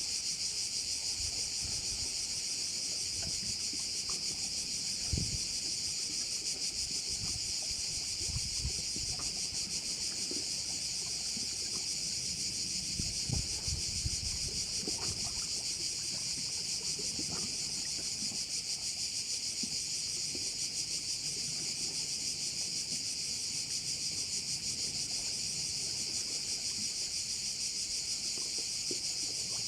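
A dense, unbroken high-pitched chorus of crickets, steady throughout. Scattered low rumbles and a few soft knocks sit under it, the strongest about five seconds in and again around thirteen seconds.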